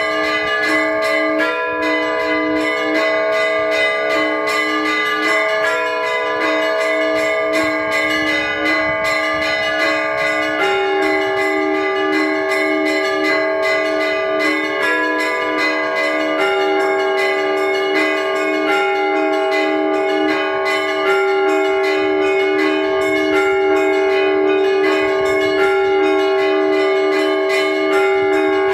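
Orthodox church bells ringing in a continuous peal: a steady beat of strikes about twice a second under several other bells whose tones shift in a changing pattern.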